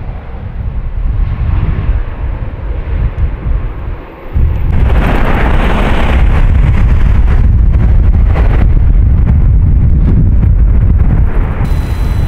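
Airbus A350's Rolls-Royce Trent XWB turbofans running at takeoff thrust, a loud low rumble as the airliner rolls and lifts off. About four seconds in it drops briefly, then becomes much louder and fuller.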